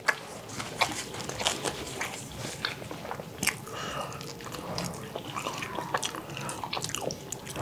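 Close-miked eating sounds: two people chewing with wet mouth smacks and many irregular little clicks, while tearing bread and picking food from bowls by hand.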